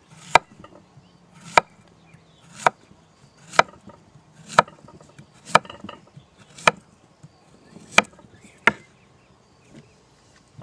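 Chef's knife slicing a zucchini into rounds on a wooden cutting board: nine sharp knocks of the blade hitting the board, about one a second, stopping shortly before the end.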